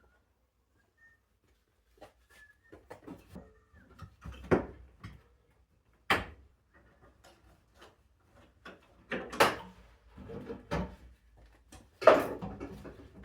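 Irregular knocks, clunks and rattles of things being handled, starting after a couple of seconds of near quiet, with four louder sharp knocks spread through.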